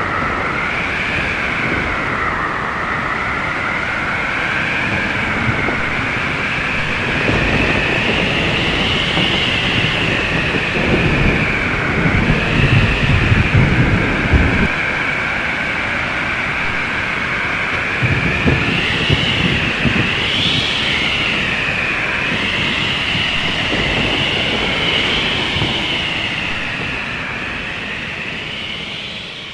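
Howling wind sound effect: a whistling tone that wavers up and down in pitch over a rumbling gusty noise that swells a few times, fading out near the end.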